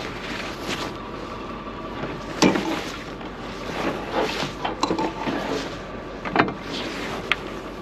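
Steel winch cable being pulled out by hand over a tow truck's wheel-lift, with a few sharp metal clanks and clicks scattered through. The tow truck runs steadily underneath.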